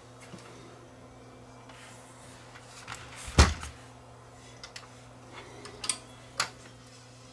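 Hands handling tools and the open amplifier chassis: one loud knock about three and a half seconds in, then a few sharp clicks near the end, over a steady low hum.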